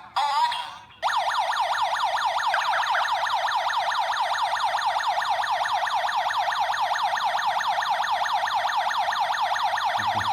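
Home security alarm system's electronic siren sounding in fast repeating pitch sweeps, about five a second, starting about a second in after a short broken tone. The alarm has been set off by the motion sensor.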